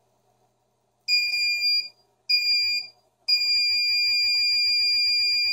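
Gate-remote receiver's electronic buzzer beeping in learning mode while a FAAC SLH remote is paired to it. It gives two short beeps and then one long, steady high beep.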